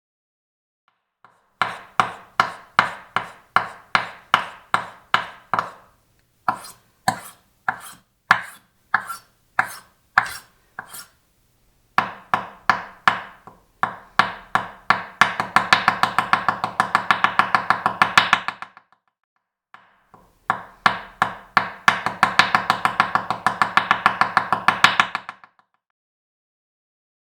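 Kitchen knife chopping on a cutting board: slow, even strokes at first, then two runs of fast, rapid chopping.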